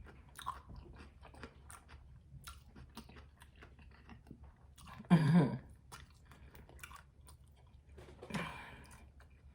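Close-up chewing and biting of a stuffed chicken and fajita quesadilla, with wet mouth clicks throughout. A short hummed vocal sound comes about halfway through, and a fainter one near the end.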